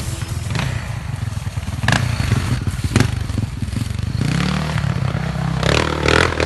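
1986 Honda XR600R's single-cylinder four-stroke engine running, its revs rising a little over halfway through, with louder clattery bursts near the end.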